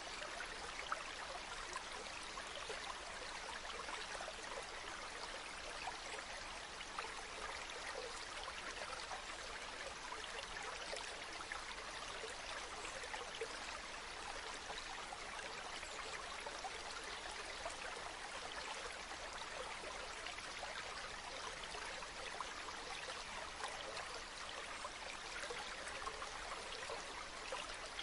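Waterfall: a steady rush of falling water, with small splashes and trickles in it.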